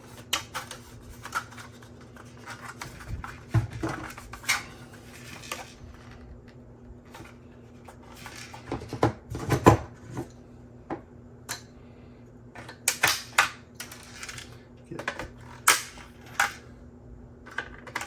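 Support material being clipped and snapped off a 3D-printed plastic helmet: irregular sharp clicks and snaps with light plastic clatter, the loudest snaps about halfway through and again in the last third.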